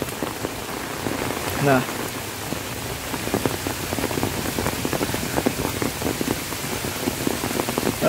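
Rain falling on an open umbrella overhead: a dense, even spread of many small drop ticks from a shower that is easing off.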